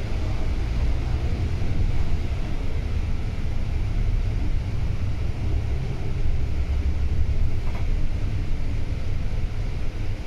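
Volvo B9TL double-decker bus under way, its six-cylinder diesel engine running with a steady low rumble mixed with road noise.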